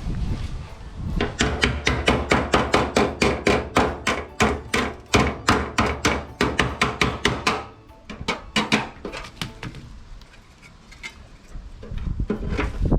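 Hammer blows on a steel sheet being shaped into a patch panel. A fast, even run of strikes at about three or four a second for several seconds, then a lull with a few softer taps, and more blows near the end.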